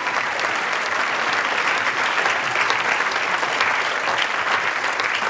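A large crowd applauding: dense, steady clapping that keeps an even level.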